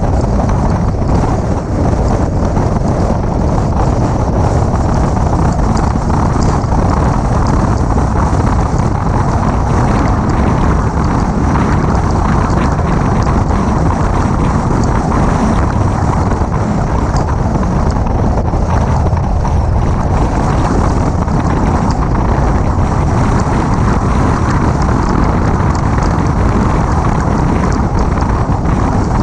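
Steady wind rushing over the microphone of a camera mounted outside a moving 2006 Mini Cooper S, with the car's road and engine noise underneath, loud and unbroken.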